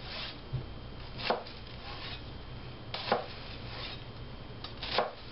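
Chef's knife slicing lengthwise through a halved onion, the blade tapping down on a plastic cutting board. There are about six separate strokes, spaced a second or so apart.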